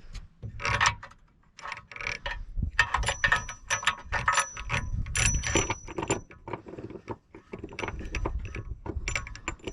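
Irregular metallic clicks and clanks of tools and bushing hardware as a subframe bolt is worked in and barely started, some strikes leaving a brief high ring.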